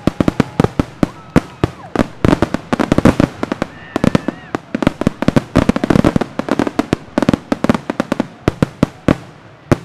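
Aerial fireworks shells bursting in quick succession: many sharp bangs, several a second, overlapping in dense clusters.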